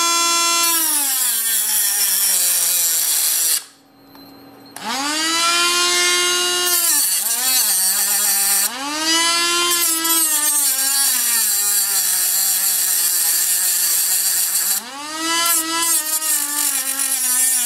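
Handheld rotary tool with an abrasive cutoff wheel cutting a thick perforated metal exhaust core. The motor's whine sags in pitch each time the wheel bites into the hard metal and climbs back as it frees up. It stops briefly about four seconds in, then spins back up to a high whine.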